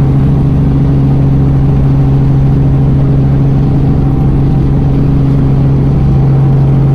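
Robinson R44 helicopter's piston engine and rotors droning steadily in flight, heard loud from inside the cabin, with a strong steady low hum.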